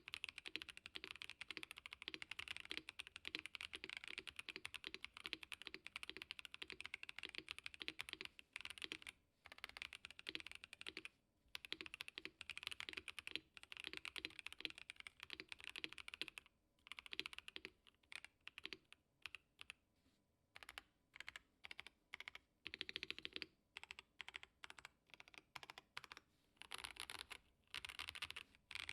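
Typing on a KBD67 Lite R3 mechanical keyboard with stock Boba U4T tactile switches and PBT keycaps. A fast, continuous run of keystrokes for roughly the first half gives way to slower, separate key presses with a few short quick bursts.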